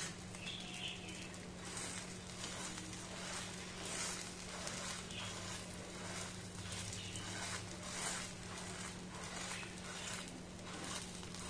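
Masala paratha batter frying in butter in a nonstick pan: a steady sizzle with many small crackling pops.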